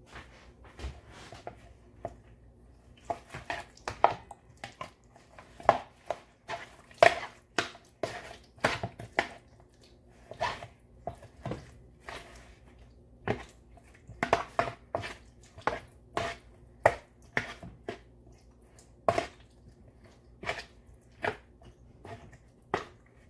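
Hands mixing raw chicken pieces with spices in a ceramic bowl: irregular wet squelches and sharp clicks, some in quick clusters, with short pauses between.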